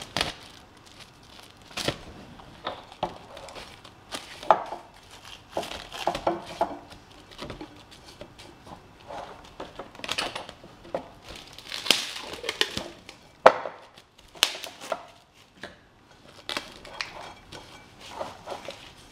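Plastic cling film pulled from its roll, stretched over a bowl and pressed down around the rim: irregular crinkling and crackling, with a few sharper crackles.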